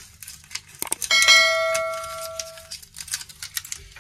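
A bell-like chime sounds about a second in and fades over about a second and a half: the notification-bell sound effect of a subscribe-button animation. Light, scattered clicks and taps sound around it.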